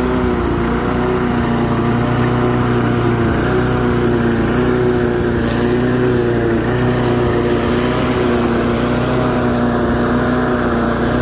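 8.5 hp Briggs & Stratton pressure-washer engine on a homemade push mower, running steadily at an even speed while cutting grass.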